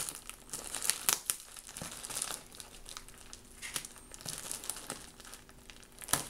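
A plastic postal mailer bag wrapped in packing tape crinkling and crackling as it is cut open with small scissors: irregular crackles, snips and rustles of the plastic and tape.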